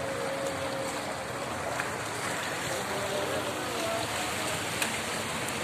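Steady rushing outdoor noise with faint distant voices.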